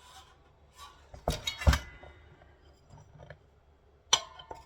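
Metal parts of a dismantled solar inverter knocking and clanking as they are handled. Two sharp knocks come about a second and a half in, the second the loudest, with a short metallic ring. Fainter clicks follow, then one more knock near the end.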